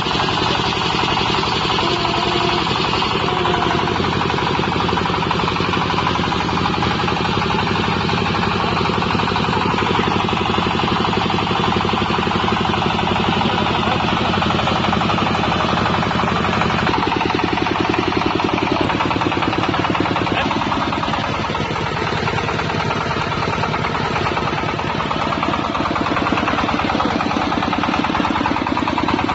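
Portable water well drilling rig's 25 HP diesel engine running steadily with a fast, even firing beat; its note shifts slightly a little past halfway.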